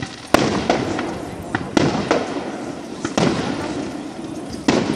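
Fireworks display: aerial shells bursting in a series of sharp bangs about a second apart, each trailing off in an echoing rumble.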